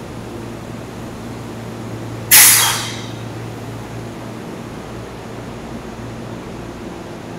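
Steady low hum of an electric train, broken about two seconds in by a sudden short, loud hiss of released compressed air, like a pneumatic air-brake release.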